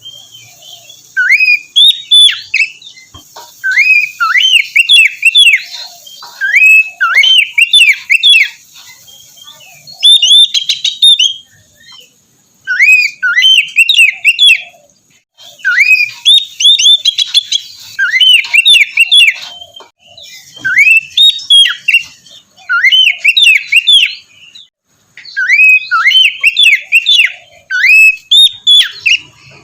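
Oriental magpie-robin (kacer) singing: short bursts of quick whistled notes sweeping up and down, repeated every second or two with brief pauses between phrases.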